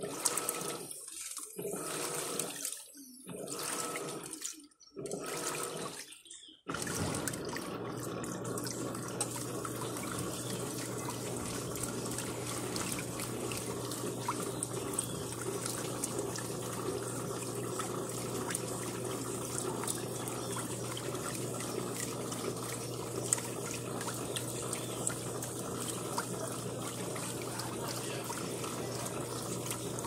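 Electrolux 15 kg top-load washing machine agitating a load in water: sloshing strokes with short pauses between them, then from about seven seconds in a steady, unbroken rush of water with a low hum.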